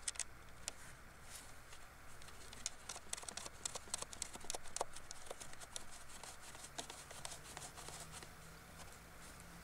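Leather work gloves rubbing and a battery cable lug and nut being handled onto a battery terminal post, making many small metal clicks and taps, thickest in the middle.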